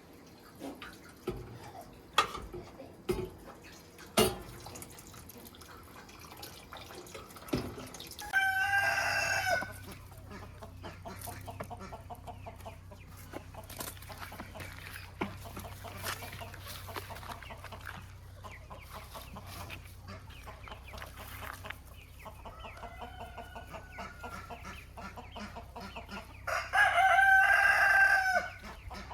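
A rooster crowing: two loud crows of about two seconds each, with a fainter, more distant crow between them. A few sharp knocks come in the first several seconds.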